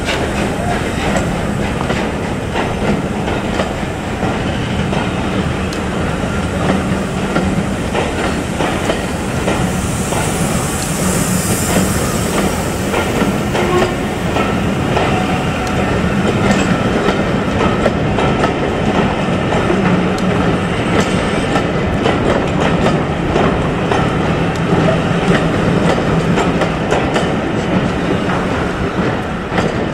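A train running along the track, its wheels clattering over the rail joints in a steady, continuous rumble. A brief hiss rises over it about ten to twelve seconds in.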